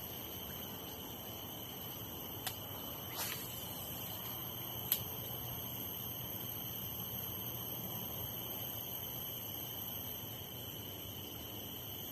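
Steady high-pitched insect chorus, an unbroken drone of several high tones, with three short sharp clicks about two and a half, three and five seconds in.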